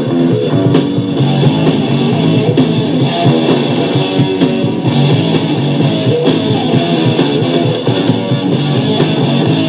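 Guitar-led background music playing steadily.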